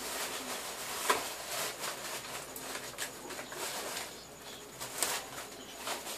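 Scattered clicks, knocks and rustling from kitchen things being handled during tidying, the sharpest knocks about a second in and about five seconds in.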